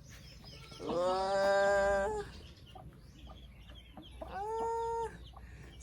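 A chicken calling twice: a long, drawn-out call about a second in, and a shorter one a little after four seconds.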